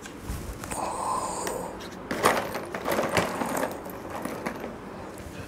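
Chalk writing on a blackboard: a run of scratches and taps, thickest in the middle, with a faint squeak early on.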